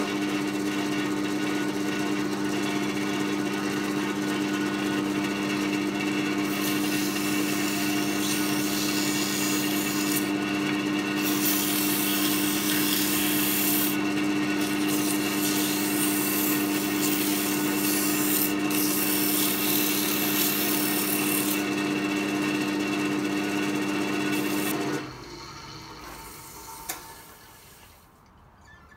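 Record Power wood lathe running with sandpaper held against a spinning wooden chisel handle: a steady motor hum under the rasping hiss of the abrasive on the wood, which comes and goes as the paper is pressed on and eased off. The lathe stops about 25 seconds in.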